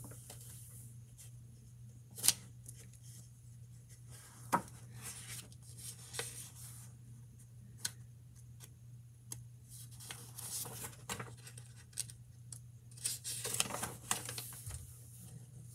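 Paper pages of a picture book being turned, rustling in short swishes with a few sharp paper snaps, over a steady low hum.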